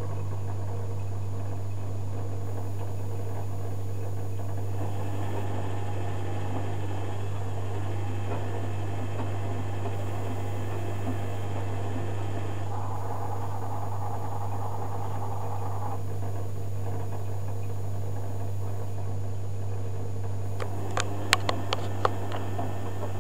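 Zanussi FJ1093 Jetsystem front-loading washing machine in the wash stage of a cotton cycle. The drum tumbles the wet load over a steady low hum, and a few sharp clicks come near the end.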